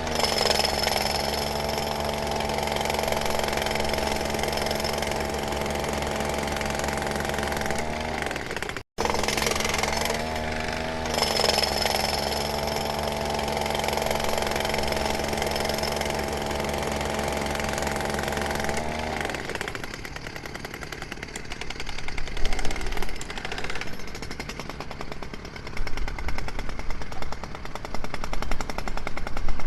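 Jackhammer working: a steady mechanical drone for about the first two-thirds, cut out for a moment about nine seconds in, then giving way to rapid, uneven pounding with loud peaks.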